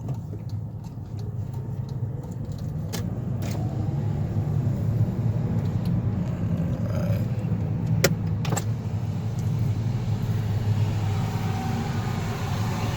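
A car driving, heard from inside the cabin: a steady low engine and road rumble that grows louder about four seconds in, with a few short sharp clicks or rattles.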